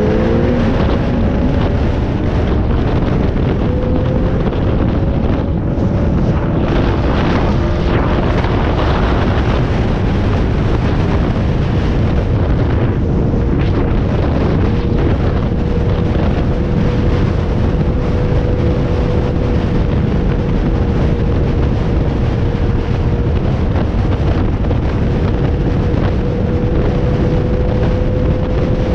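Steady wind noise buffeting the microphone over a running vehicle engine. The engine hum holds a nearly constant pitch throughout.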